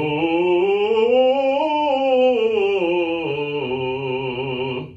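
A male operatic voice singing a fast run of notes on an 'oo' vowel, climbing a ninth from C3 to D4 and back down. The run peaks about two seconds in and settles onto a final held note before stopping just before the end.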